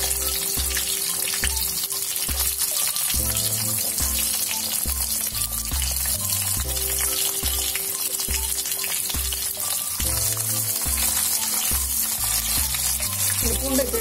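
Halved shallots frying in hot sesame oil in a clay pot, a steady crackling sizzle. Background music with a regular bass beat runs underneath.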